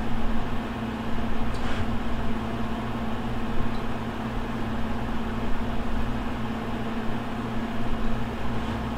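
Steady mechanical hum with a constant low tone, from a machine running in the workshop.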